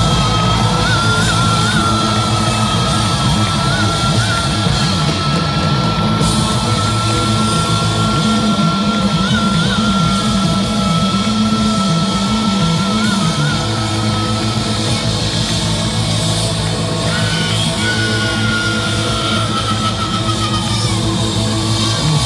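Live rock band playing loudly over a big stage sound system, heard from within the crowd. A long high note is held, wavering slightly, for about fifteen seconds, and a second one is held near the end.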